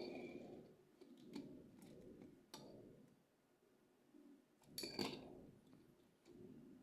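Quiet handling of toy train cars and their packaging: a few light clicks and taps, two of them with a brief ringing tone, over faint rustling.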